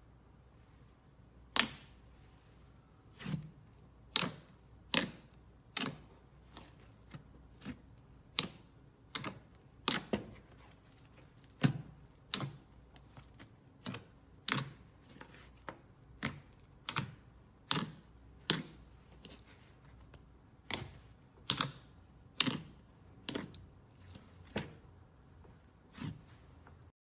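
Glossy slime being handled, giving sharp clicking pops about once a second at an uneven pace.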